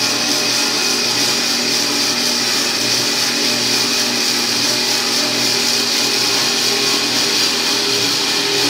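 ARG 220 plus metal-cutting band saw running steadily: an even hiss over a low machine hum.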